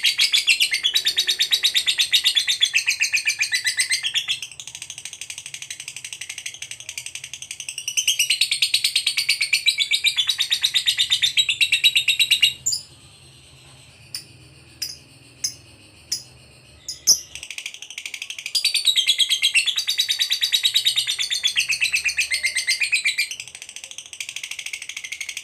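Lovebird singing its long, rapid chattering trill (ngekek) in long runs. Roughly halfway through the trill stops for a few seconds, with only a handful of short sharp chirps, then starts again.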